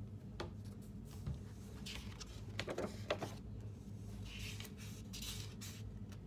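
Quiet handling of a pen and a paper journal at a desk: a few light clicks around the middle and a soft rustle a little later, over a faint steady hum.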